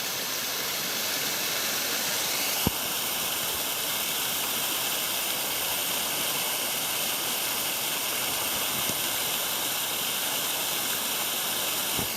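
Small creek cascade: water running over rocks into a pool, a steady rushing hiss. A single brief knock about three seconds in.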